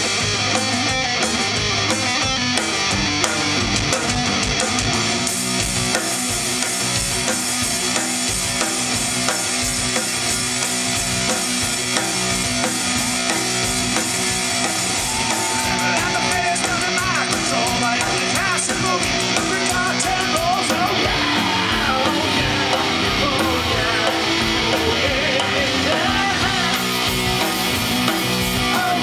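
Punk rock band playing live, with electric guitar, electric bass and a drum kit.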